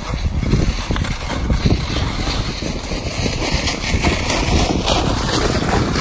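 Strong wind buffeting the phone's microphone: a loud, gusting rumble.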